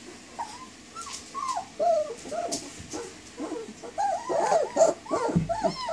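German Shepherd puppies, 19 days old, whining and whimpering in short cries that rise and fall in pitch, the puppies crying for their mother. The cries are sparse at first, then come thick, overlapping and louder from about four seconds in. There is a low thump near the end.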